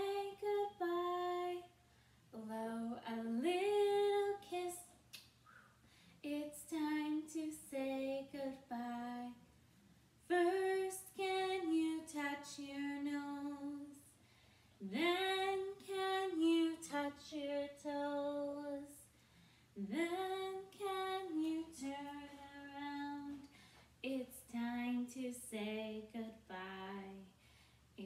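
A woman singing a children's goodbye song unaccompanied, in short phrases separated by brief pauses.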